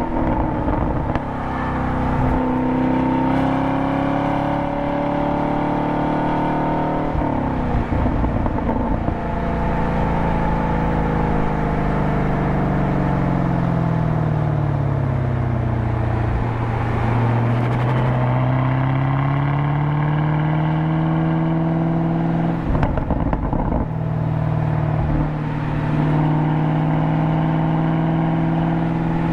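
A 2022 Camaro SS 1LE's LT1 V8, heard from inside the cabin under hard track driving: the engine note climbs, changes up into fourth gear about seven seconds in, falls steadily through the middle as the car slows, then climbs again. There are brief breaks in the note near the end.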